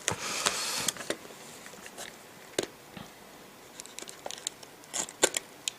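Heavily taped cardboard package being pried open by hand: a noisy tearing rustle of tape and cardboard for about the first second, then scattered crinkles and small taps, with a cluster of sharp clicks near the end.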